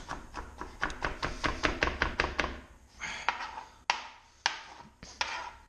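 Kitchen knife mincing garlic on a cutting board, the blade knocking on the board. The knocks come quickly, about six a second, for the first two and a half seconds, then slow to a few scattered, sharper knocks.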